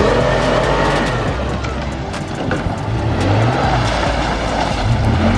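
A four-wheel-drive's engine working hard, its pitch rising and falling, over a constant rush of noise with scattered sharp clicks.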